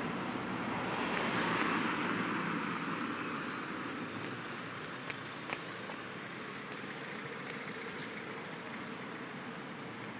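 Road traffic noise, with a vehicle passing that swells about a second or two in and then fades into a steady background hum.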